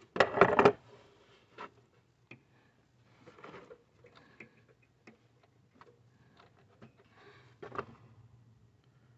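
Hands working rubber coolant hoses and their fittings around a throttle body: a louder rustle in the first second, then scattered light clicks and soft rustles, with another short rustle near the end.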